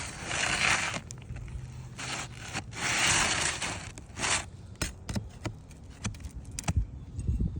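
A roof shingle scraping and rubbing as a new one is slid into place under the course above, in two long scrapes, followed by a few light clicks.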